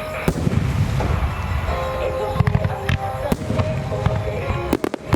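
Starmine fireworks barrage: many aerial shells bursting in quick succession as a continuous low booming rumble, with the show's music playing over loudspeakers. A hard burst opens it just after the start, and a rapid string of sharp cracks comes near the end.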